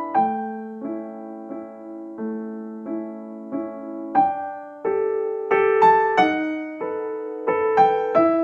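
Background music: a gentle piano melody of single struck notes that ring and fade, about two notes a second.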